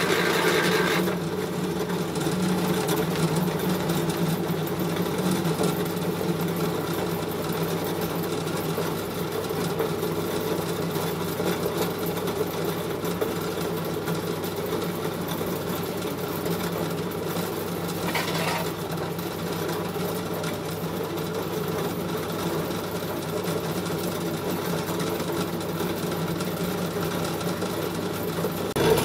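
Small electric animal-feed pellet mill running steadily, pressing mixed pig feed through its die into pellets: a constant machine drone.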